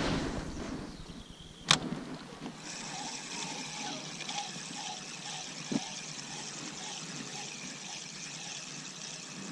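A spinning reel being wound to retrieve a lure. A sharp click comes about two seconds in, then a steady, faint whirring hiss from the reel, with one light knock near the middle.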